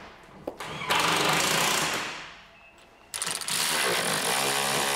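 Cordless impact wrench hammering on suspension bolts in bursts: a burst of about a second starting about a second in, then a longer one from about three seconds in.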